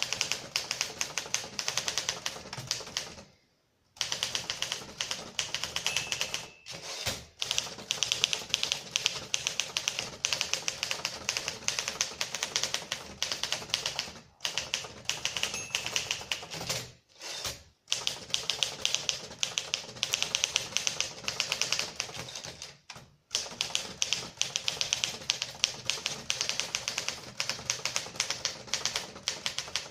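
Typing on a 1956 Torpedo 18 manual portable typewriter: rapid, continuous key strikes, stopping briefly a few times.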